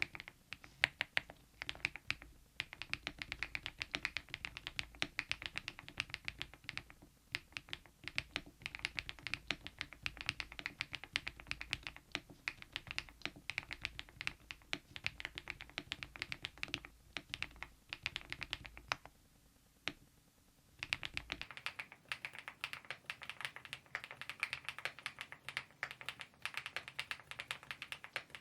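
Fast typing on a mechanical keyboard fitted with KeyTok Godzilla dye-sublimation keycaps: a dense run of keystrokes, with a short pause about twenty seconds in before the typing resumes.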